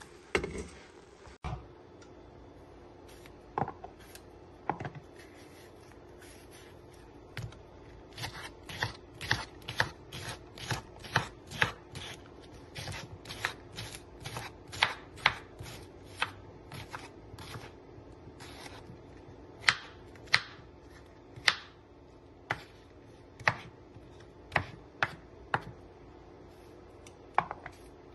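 Knife cutting cucumber on a wooden cutting board: sharp, uneven chopping knocks, a few at first and then one or two a second, over a faint steady hum.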